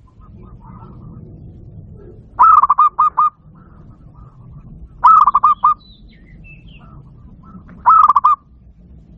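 Zebra dove (perkutut) singing: three phrases of quick, staccato coos, each about a second long and spaced roughly two and a half seconds apart, over a low steady hum with faint chirping between.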